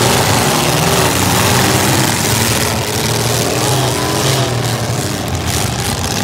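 Several demolition derby cars' engines running and revving together, their pitch rising and falling, over a dense, steady noise.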